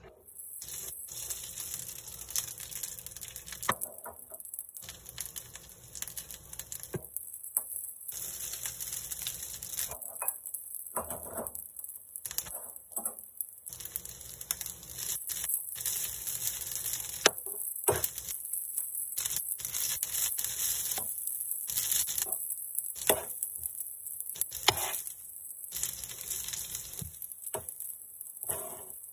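Cooked rice sizzling on a hot oiled electric griddle, a steady high crackling hiss that starts abruptly as the rice goes on. Sharp scrapes and taps of a metal spatula spreading the rice come and go over it.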